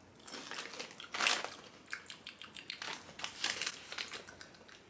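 Chili and cheese corn chips being bitten and chewed: a string of irregular crunches, loudest about a second in.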